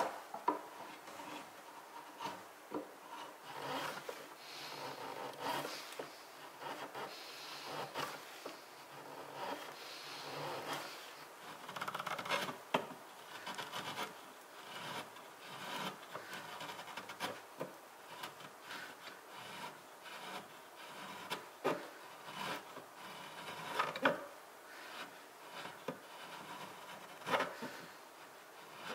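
A small hand chisel paring and scraping wood at the corner of a joint, in a run of short, irregular scraping strokes with small ticks.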